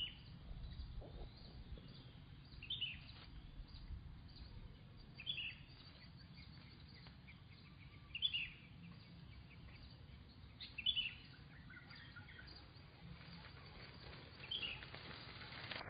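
Short, high chirping calls, about six of them, repeated every two to four seconds over a low, steady background rumble.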